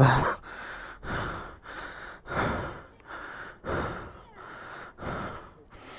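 A person breathing heavily close to the microphone: a loud breath about every second and a half, with softer ones in between. The breathing is the panting of someone out of breath and tired from exertion.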